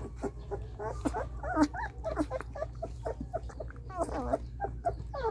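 18-day-old German Shepherd–Belgian shepherd cross puppies whimpering and squeaking in many short, rapid high-pitched calls, with a longer, louder whine about four seconds in.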